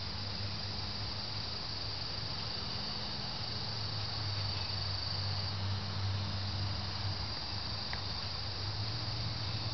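A chorus of insects trilling in one steady high tone that dips briefly about five and a half seconds in, over a low steady hum.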